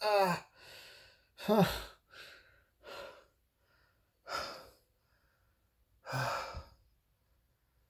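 A person breathing heavily: a string of short, breathy sighs and gasps, several voiced and falling in pitch, about a second apart. The loudest comes right at the start, and they thin out toward the end.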